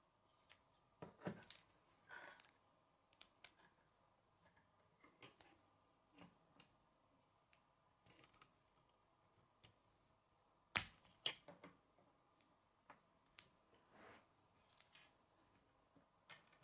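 Plastic K'nex rods and connectors clicking and knocking as they are handled and snapped together. Scattered small clicks, with one sharp, louder snap about eleven seconds in.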